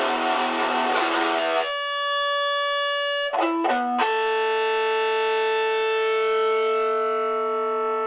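Overdriven electric guitar through an Orange Micro Crush mini amp's small internal speaker: busy distorted playing for under two seconds, then a held note, and after a brief change about three seconds in, another note that sustains at an even level without dying away, the guitar held up to the speaker to make it feed back.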